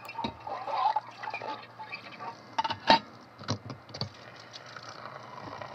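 Tap water running into a stainless steel sink while a metal mixing bowl is rinsed, with several knocks and clatters of the bowl against the sink, the loudest about three seconds in. After about four seconds only the steady stream of water into the drain remains.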